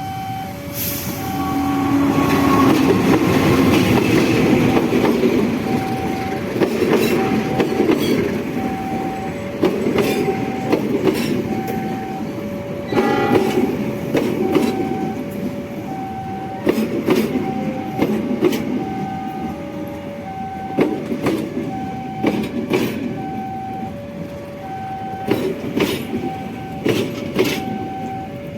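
A train passing close by, its wheels clacking in clusters over the rail joints. Throughout, a level-crossing warning alarm sounds an alternating two-tone chime.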